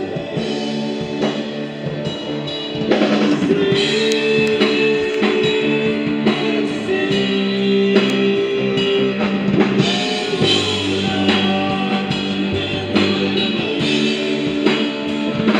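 Band music with drum kit and guitar: held chords over a steady beat.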